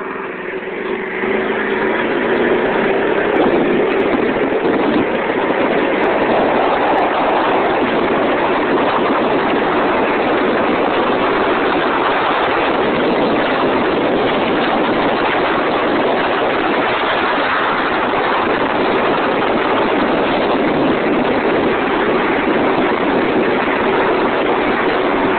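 Go-kart's Predator engine with a torque converter picking up about a second in as the kart pulls away, then running steadily at speed. The engine is mostly buried in a steady rush of noise.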